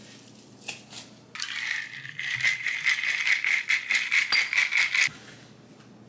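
Ice cubes rattling and clinking in a stainless-steel bowl: a few single knocks, then a dense rattle lasting about four seconds from a little over a second in.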